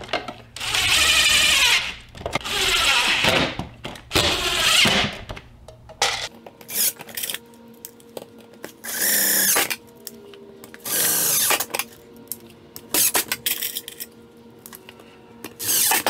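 DeWalt 20V MAX cordless impact driver driving screws through the backs of plastic tilt bins into the wall. There are three long bursts in the first five seconds, then shorter bursts a couple of seconds apart.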